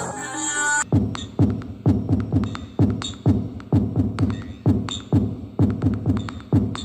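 Electronic music played on a Tessco FS-383 8 W Bluetooth speaker in a sound test. A bright, jingly passage stops just under a second in and gives way to a heavy beat of deep kicks that fall in pitch, about two a second, with light clicks over them.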